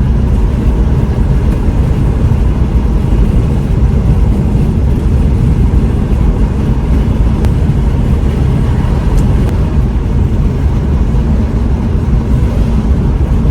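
Steady, loud low rumble of a car on the move, heard from inside the cabin: road and engine noise while driving.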